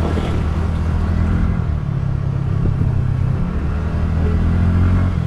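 TVS Ntorq 125 scooter's single-cylinder engine running while riding, a steady low hum that rises a little in pitch about two seconds in.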